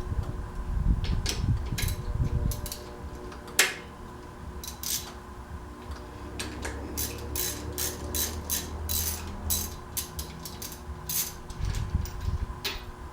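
Irregular metallic clicks and clinks, like tools or small metal parts being handled, over a steady hum and a low rumble.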